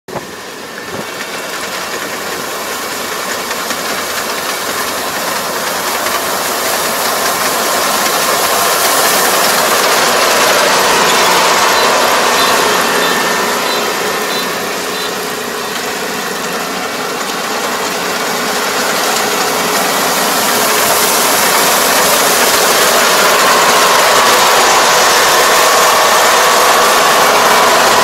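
Kubota ER470 four-row combine harvester's diesel engine and harvesting gear running under load while cutting rice, growing steadily louder as the machine comes closer, with a brief dip about halfway through.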